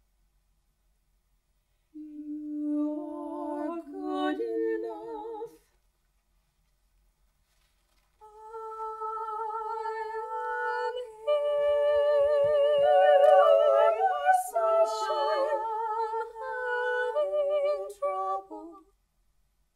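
Small mixed a cappella vocal ensemble singing with vibrato: a short phrase begins about two seconds in and breaks off, then after a pause several voices enter together and build into a fuller, sustained passage that ends shortly before the close.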